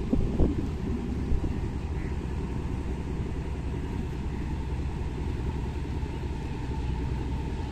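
Steady low rumble of a boat's engine on the water, with a faint steady whine above it and a couple of brief thumps in the first second or so.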